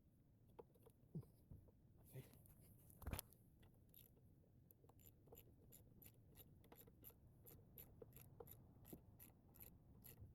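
Faint hand-tool work on the generator: a few light knocks, the loudest about three seconds in, then a long run of even ticking at roughly three a second, like a ratchet being worked.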